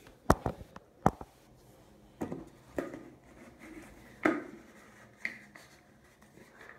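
A plastic travel tumbler being handled, its lid twisted and worked: a series of about seven sharp knocks and clicks, the loudest in the first second.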